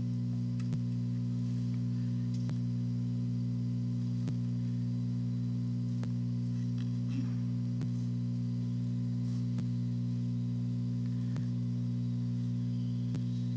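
Steady low electrical hum, with faint scattered clicks of plastic pony beads being picked up on a needle and strung.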